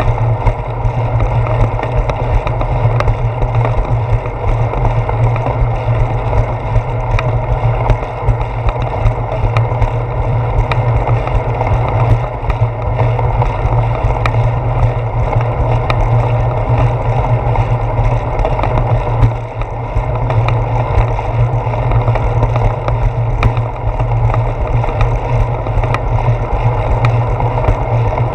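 Wind and ride noise on a handlebar-mounted GoPro Hero 4 on a moving bicycle: a loud, steady low rumble with frequent small clicks and knocks from the bike's vibration.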